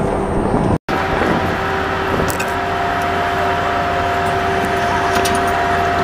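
Steady mechanical drone with two steady tones over a low rumble, dropping out for an instant about a second in, with a few faint light clinks later on.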